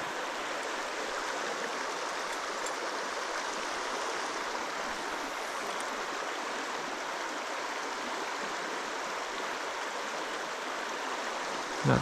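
Running water of a small trout stream, a steady even rush.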